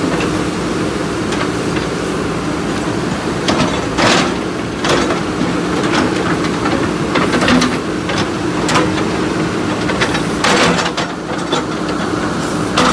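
Diesel engines of two JCB 3DX backhoe loaders running steadily under load, with clanks and scrapes of their steel buckets against broken brick and concrete, the loudest about four seconds in and again around ten and a half seconds.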